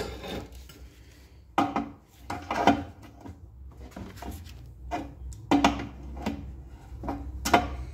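Irregular knocks and clatter of hard parts being handled as one side of an air compressor is taken apart, some knocks ringing briefly, over a faint low hum.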